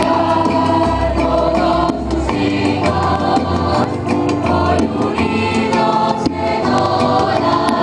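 A choir singing a church hymn in harmony, with sustained low bass notes beneath.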